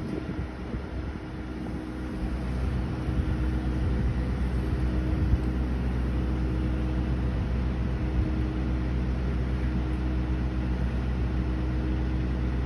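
An engine running steadily, picking up and growing louder about two seconds in, then holding at that level.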